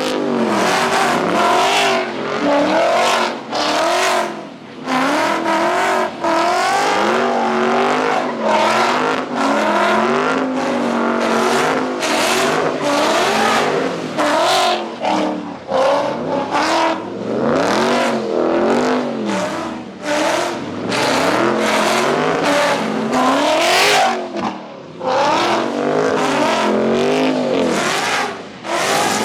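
Car engines revving hard over and over, the pitch climbing and dropping every second or so, with tire and exhaust noise, as a car does stunts in a street takeover pit.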